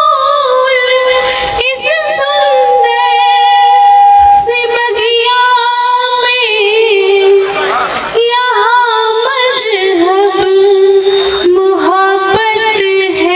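A woman singing a Hindi poem in a melodic style through a stage microphone, with wavering, vibrato-ornamented phrases. She holds one long note from about two seconds in.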